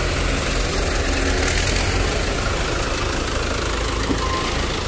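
HMT 5911 tractor's diesel engine running steadily with a low rumble.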